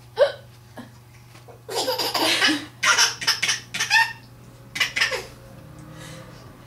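A woman's hiccup, a short sharp yelp that drops in pitch, right at the start. Then a young child laughs in bursts, from about two seconds in to four, and briefly again near five seconds, amused by the hiccups.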